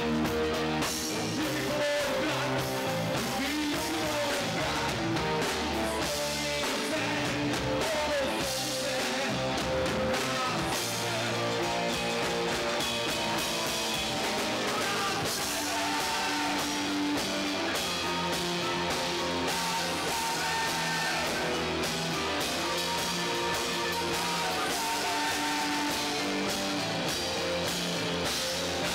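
Rock band playing live: electric guitar, bass and drum kit with keyboards, one steady stretch of a song.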